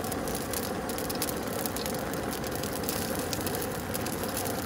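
Hot oil sizzling and crackling in a kadai as mustard seeds and urad dal fry, a steady sizzle with many small pops.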